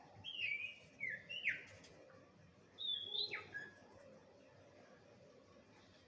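A young 'sirtu' songbird calling: short whistled notes, each sliding down in pitch, given in two quick bursts.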